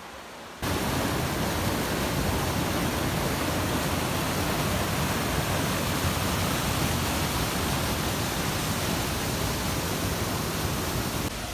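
Fast water rushing over rocks in a small rapid, a loud steady rush that starts suddenly about half a second in and drops away near the end.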